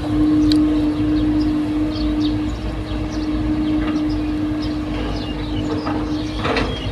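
Caterpillar excavator running under load, a steady low engine rumble with a constant whine, short high metallic squeaks and clicks, and a knock near the end.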